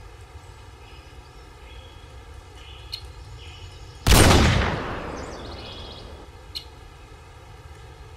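A single loud gunshot blast about four seconds in, as from the gun mounted on the horse, dying away over about two seconds. Faint bird chirps and wind sit in the background around it.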